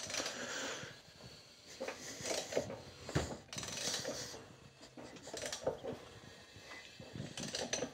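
Honda H-series DOHC engine being turned over slowly by hand to check the new timing belt. There are irregular rubbing and scraping noises from the tool and moving parts, with one sharp click a little after three seconds in, as the belt carries the cam gears round.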